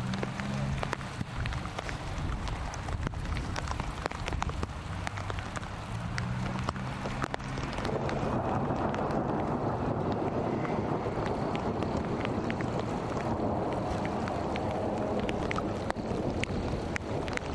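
Wind buffeting the microphone as a continuous rumbling hiss, louder from about eight seconds in and easing slightly near the end, with scattered light clicks.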